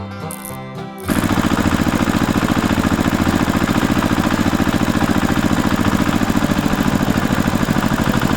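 A small motor starts about a second in and runs loud and steady, with a fast, even pulsing.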